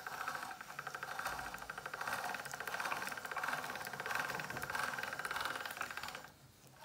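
Hand-cranked Cuisinart pasta machine rolling a sheet of dough between its steel rollers, its gears giving a fast, steady rattle of clicks that stops about six seconds in.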